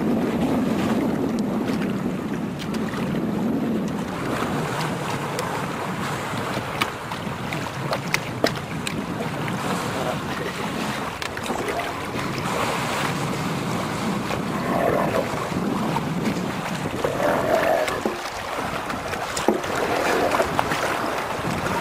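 Water splashing and sloshing around a canoe on open water, with wind buffeting the microphone and a few sharp knocks.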